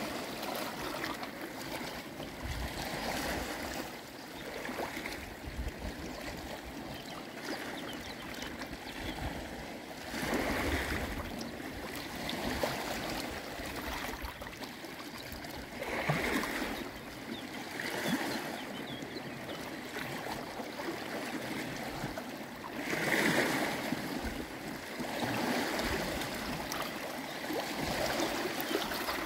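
Seawater washing and lapping over a rocky shore, with a steady wash that swells louder several times as waves surge in.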